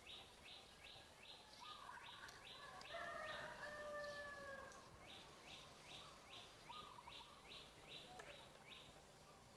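Faint birdsong: a short high chirp repeated about three times a second, pausing briefly near the middle. A longer, lower whistled call is held for over a second about three seconds in.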